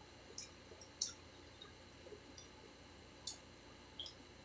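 Faint mouth sounds of people eating pizza and French fries: a few short clicks of chewing and lip smacks, the sharpest about a second in and another pair near the end.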